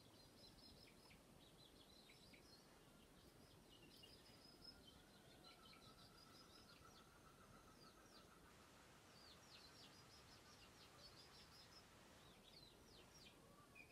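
Faint, high-pitched bird chirping: many short, quick chirps that sweep downward in pitch, in rapid runs, with a faint steady warble lower down in the middle.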